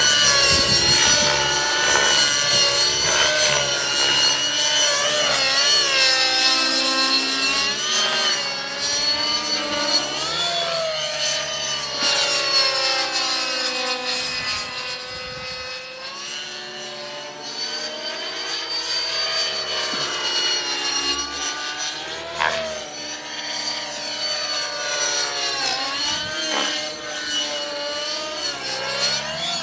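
Align T-Rex 600LE radio-controlled model helicopter in flight: a steady rotor and drive whine that keeps sliding up and down in pitch as it manoeuvres. It grows quieter about halfway through as it flies farther off, then louder again.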